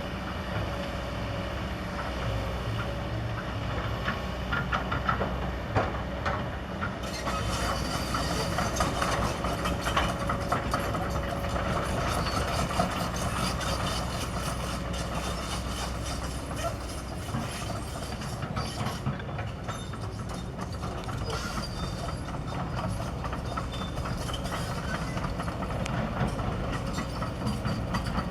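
Kobelco SK200 hydraulic excavator running its diesel engine under steady work. From about seven seconds in, frequent metallic clanks and scraping join the engine.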